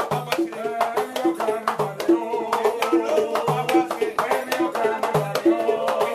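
A set of three batá drums (iyá, itótele and okónkolo) playing the oru cantado for Ochun, a sung sequence, with a man's voice singing over the drums and the iyá's bells jingling. A deep open stroke comes about every second and a half to two seconds, between higher interlocking strokes several times a second.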